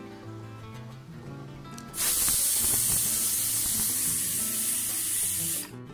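Stovetop pressure cooker whistling: steam starts hissing out from under the weight valve about two seconds in, holds loud and steady for about three and a half seconds, then cuts off sharply. The whistle is the sign that the cooker is at full pressure and venting.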